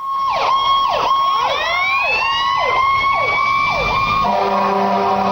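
Fire engine siren: a steady high tone with quick falling sweeps repeating about every two-thirds of a second. About four seconds in it gives way to a deep, steady horn blast.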